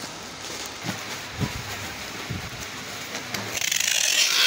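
Soft handling knocks of snack bags and a cardboard box, then about three and a half seconds in, a loud screech of packing tape being pulled off its roll, growing louder and cutting off suddenly near the end.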